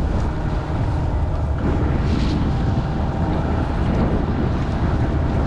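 Small fishing boat's motor running steadily while trolling, with wind buffeting the microphone.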